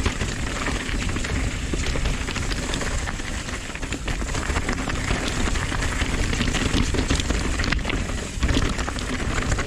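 Nukeproof Dissent 290RS downhill mountain bike rolling fast down a dirt and stony singletrack: tyres crackling over dirt, leaves and small rocks, with constant rattling clicks from the bike and a low rumble of wind buffeting the bike-mounted camera's mic.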